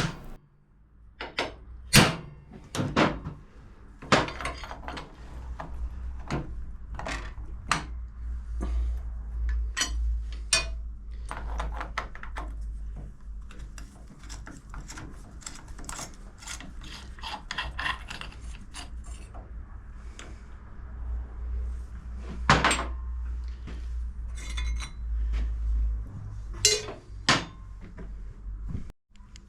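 Hand tools and metal motorcycle clutch parts clinking and knocking as they are handled and set down, with a steady low hum underneath. The sharpest knocks come about two seconds in and again around twenty-two seconds.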